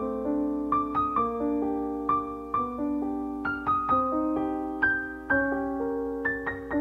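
Background piano music: a gentle, slow melody of single notes and chords, each struck and left to ring and fade.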